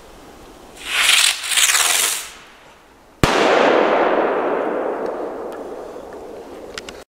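Tropic Fireworks Circoblitz TR 2 firework going off: a loud hissing rush of the launch lasting about a second and a half, then, about three seconds in, one sharp bang of the burst with a long rumbling echo that fades over several seconds, with a few small pops near the end.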